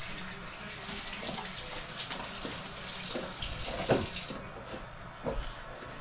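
Kitchen tap running into the sink while hands are washed, shutting off about four seconds in. A couple of short knocks from a knife on a plastic cutting board.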